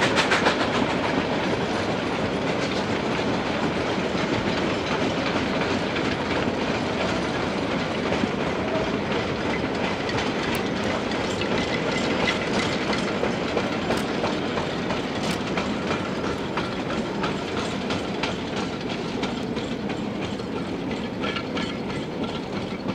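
Freight cars of a narrow-gauge steam train rolling past, wheels clicking over the rail joints. The sound is steady and slowly grows quieter toward the end.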